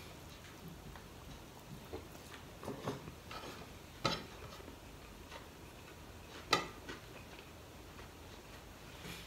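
Eating sounds of a person eating rice and sautéed mung beans by hand from a plate: scattered small clicks and smacks, with two sharper ones about four seconds in and again about six and a half seconds in.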